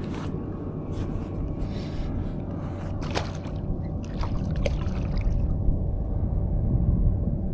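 Shallow bay water sloshing and dripping close by while wading, over a steady low rumble. A few short splashy clicks come about three and four and a half seconds in.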